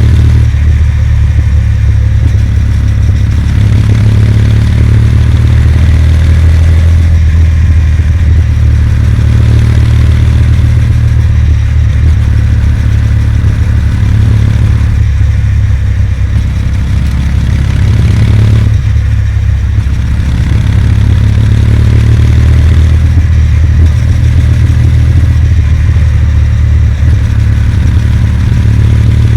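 Kawasaki W800's air-cooled parallel-twin engine running steadily under way, buried in a loud, steady low rumble of wind across the on-board microphone.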